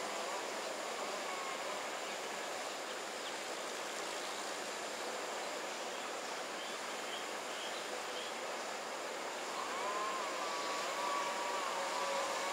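Steady outdoor background noise. There are faint short high chirps around the middle, and a wavering tone in the last three seconds.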